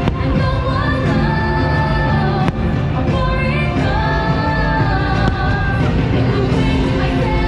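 Loud orchestral show music with held sung notes, with a sharp bang right at the start and another about two and a half seconds in.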